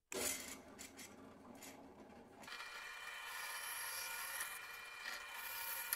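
Drill press switched on with a click, its motor starting and running. About two and a half seconds in, a 10 mm twist bit begins cutting into a 2 mm-wall steel rectangular tube, adding a steady high-pitched cutting whine.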